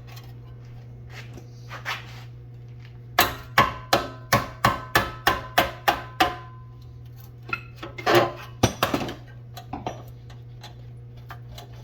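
Hammer blows on a sheet-steel car floor pan: a quick run of about a dozen strikes lasting three seconds, then a few more scattered knocks. This is the salvaged panel section being knocked loose from the spot welds that still hold it. A steady low hum sits underneath.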